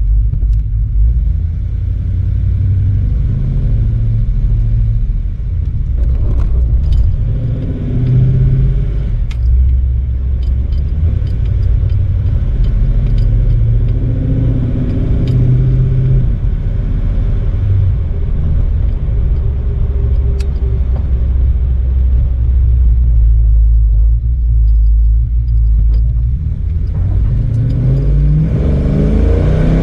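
1948 Ford car being driven: a steady low engine rumble with light clicks and rattles. Near the end the engine revs up, its pitch rising.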